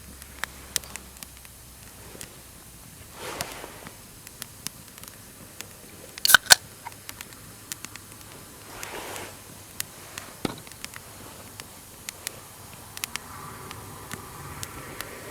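Wood campfire crackling, with irregular sharp pops and a louder double snap about six seconds in, and two brief soft rushes of noise.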